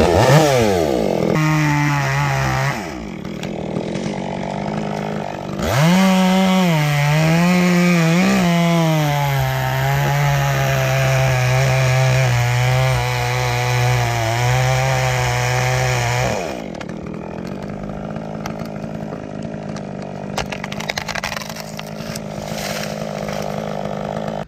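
Chainsaw cutting a limb off a dead elm. It revs up with a short cut, idles a few seconds, then runs at full throttle for about ten seconds with the pitch sagging under load. It drops back to idle for the rest.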